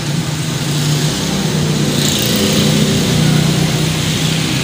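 A motor running steadily, a continuous low droning hum.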